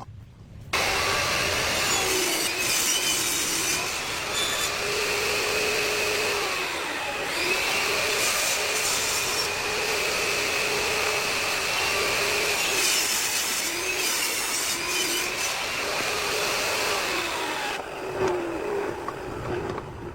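A power saw running steadily as it cuts through wood. A continuous motor whine sets in about a second in and thins out near the end.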